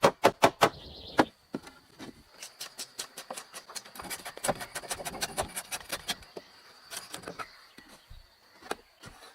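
Fast, even knocking, about five strikes a second, that stops under a second in, followed by irregular knocks and scraping, over a faint steady high insect drone.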